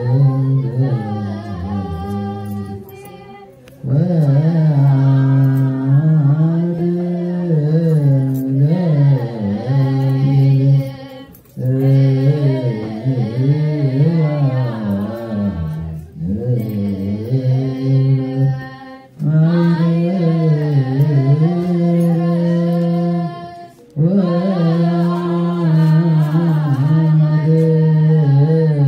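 Ethiopian Orthodox choir chanting wereb, a liturgical hymn, in unison without instruments. The chant moves in long, slowly bending phrases of several seconds, each ending in a short pause for breath.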